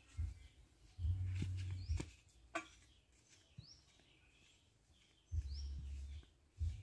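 A bird repeats a short, high, rising chirp about every second and a half, over low rumbles and a few dull thumps, the loudest of them about a second in and again near the end.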